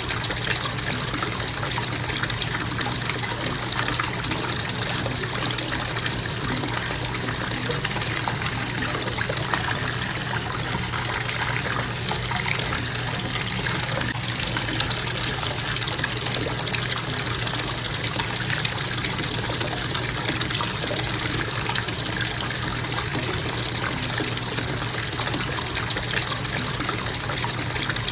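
Bathtub faucet running in a steady, constant stream, water splashing into the tub, with a steady low hum beneath it.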